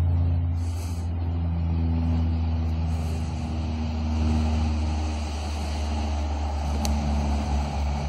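Airplane engine droning overhead: a steady low hum with several held tones that shift slightly in pitch. One sharp click comes about seven seconds in.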